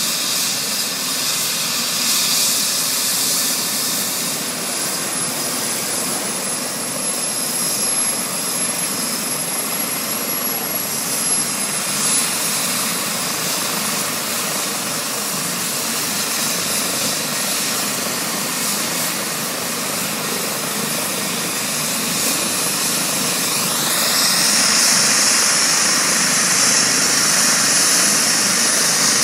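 Eurocopter EC135 trauma helicopter's turbine engines running on the ground: a steady hiss with a thin high whine. About 24 seconds in, a whine rises in pitch and the sound gets louder.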